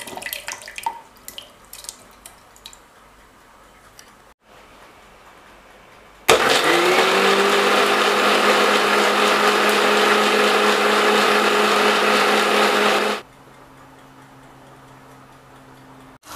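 Mixer-grinder with a stainless steel jar wet-grinding soaked spices and cashews into a paste: the motor comes on about six seconds in, settles to a steady high-speed whir for about seven seconds, then switches off. Before it starts, a few light clicks and splashes as the ingredients go into the jar.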